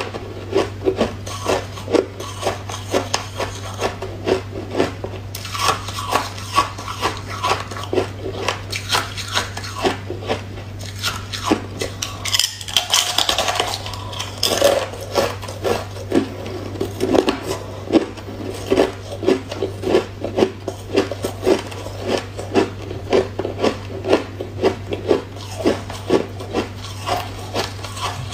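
Thin slabs of ice crunched and chewed close to the mouth, in a steady rhythm of about two loud crunches a second, with a crisper, brighter stretch about halfway through. A steady low hum runs underneath.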